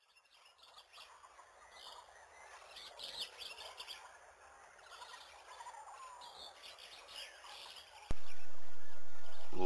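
Birds chirping and tweeting, faint, as a nature ambience. About eight seconds in, a sharp click, then a steady low hum that is louder than the birds; just before the end a pitched tone starts, sliding down.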